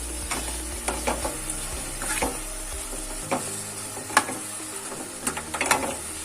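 Spoon stirring a tomato-onion masala frying in oil in a pan, with a steady sizzle and scattered scrapes and knocks of the spoon against the pan, the sharpest about four seconds in and a quick cluster near the end.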